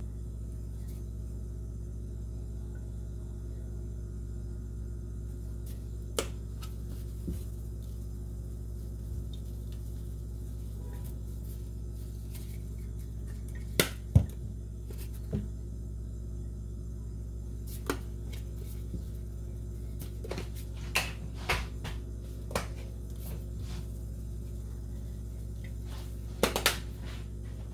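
Steady low hum with scattered light taps and clicks of kitchen handling as the chicken wings in a plastic colander are dusted with flour. The sharpest knocks come about halfway through and again near the end.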